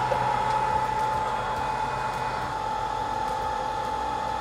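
A BGA rework station running, its hot-air heater blower giving a steady rushing noise with a constant high whine, the board held at reflow temperature for lifting off the processor. A low hum drops out about halfway through.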